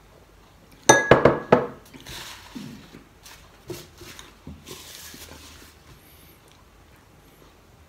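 A glass mug set down on a wooden table: a quick cluster of four sharp clinks with a short ring about a second in, then fainter scattered tabletop noises.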